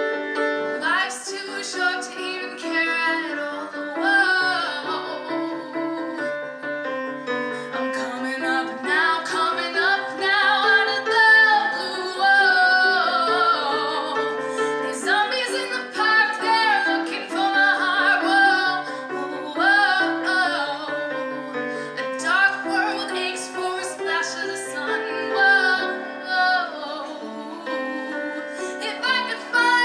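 A woman singing a ballad live with piano accompaniment, holding long notes with vibrato.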